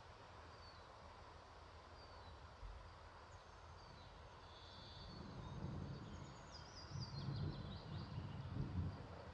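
Distant thunder rumbling low, building from about halfway through and loudest near the end. Birds sing over it: short chirps repeated every second or so, and a descending trill.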